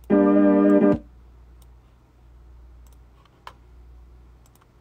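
A held electronic keyboard chord sounds for about a second and stops short, followed by a few faint clicks: an instrument sound being previewed while a beat is built.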